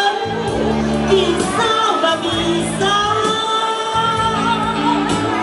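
A song sung with live electronic keyboard accompaniment, the voice holding long notes over a steady bass line.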